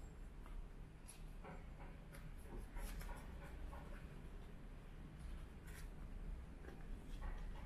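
Banana leaf rustling and crinkling as it is handled for wrapping, with scattered soft scrapes and crackles over a low steady hum.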